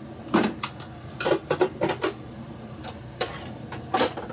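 Kitchenware being handled: about ten sharp clinks and knocks at uneven intervals, the loudest about half a second in, just past a second, and near the end.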